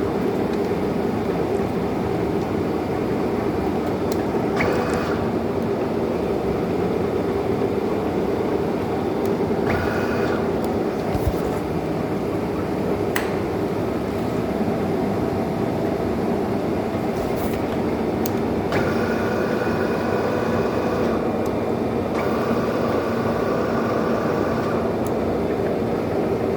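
1M63 heavy centre lathe running: a steady mechanical hum from its headstock gearing with a constant drone underneath. A higher gear whine comes in briefly a few times, and for several seconds near the end.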